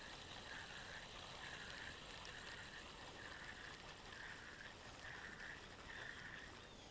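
Spinning reel being cranked to wind line back in: a faint whirr that swells and fades with each turn of the handle, about one turn a second, stopping shortly before the end.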